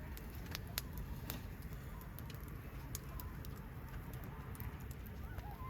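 Wood bonfire crackling, with scattered sharp pops of burning wood over a steady low rumble. Faint bird calls come in near the end.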